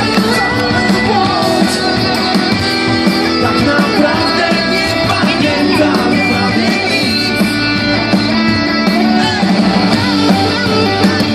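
Live rock band playing loud through the concert PA: drums and electric guitars, with a singing voice over them.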